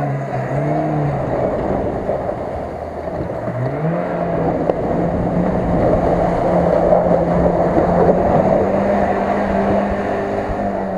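Chevrolet Niva engine revving under load as the SUV drives through shallow water and broken ice, with steady splashing and sloshing. The engine note dips, then climbs about four seconds in and holds steady.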